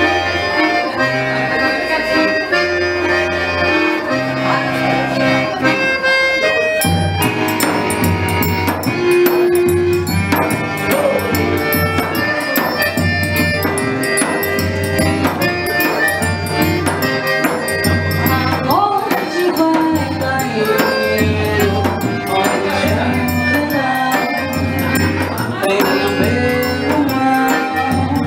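A forró trio plays an instrumental passage of a xote: an accordion carries the melody with held notes. About seven seconds in, the zabumba's regular bass beat and the triangle's steady high ticking take up the rhythm underneath.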